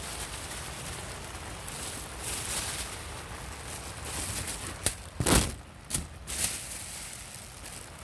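Rustling of dry grass and a paper bag as insects are let out into the grass. There are a few sharp knocks between about five and six and a half seconds in; the loudest is just past five seconds.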